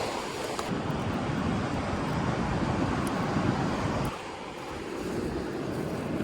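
Steady rush of wind and rough breaking surf, the wind buffeting the microphone, with a brief lull about four seconds in.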